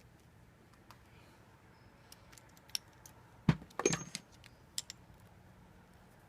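Hand tools being handled, giving a few sharp metal clicks and clinks. The loudest comes about three and a half seconds in, followed by a short rattle.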